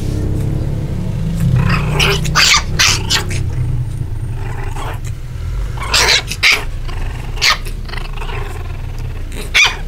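Puppies play-fighting, giving short growls and yips about half a dozen times.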